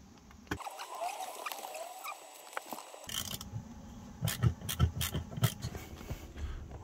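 Hands working at wiring connectors in a camper van's electrical compartment: faint scraping and rustling, then a quick run of sharp clicks and knocks in the second half.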